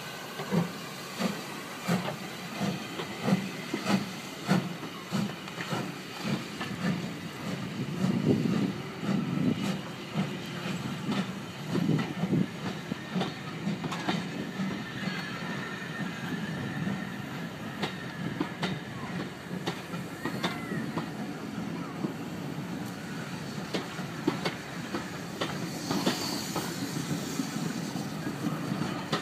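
Southern Railway U class 2-6-0 steam locomotive pulling away under load, its exhaust beating about one and a half times a second and slowly quickening. After the engine has passed, the coaches roll by with a running clatter of wheels over rail joints.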